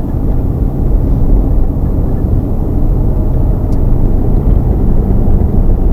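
Steady low rumble of a car driving: road and engine noise heard from inside the cabin.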